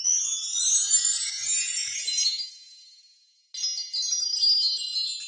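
High-pitched twinkling chime sound effect, like wind chimes or small bells, in two swells. The first sweeps downward and fades over about three seconds, and the second starts about three and a half seconds in.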